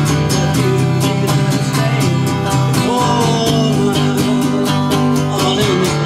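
Acoustic country-style music: a strummed acoustic guitar keeps a steady rhythm while a melody line glides above it.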